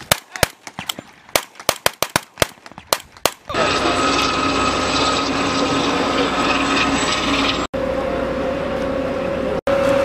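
FAMAS assault rifles firing blank cartridges: irregular shots in quick succession for about the first three and a half seconds. Then a steady running noise with a high whine from a wheeled armoured vehicle's engine.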